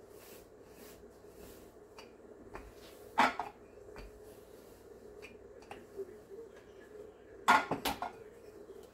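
Wooden rolling pin working dough on a granite countertop: faint rolling, one sharp knock about three seconds in, then a louder clatter of a few quick knocks near the end as the pin is set down on the stone counter.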